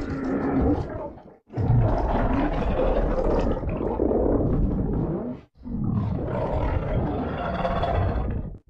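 King Ghidorah creature roar sound effects: the end of one roar, then two long, rough roars, each about three to four seconds, with a sudden break between them.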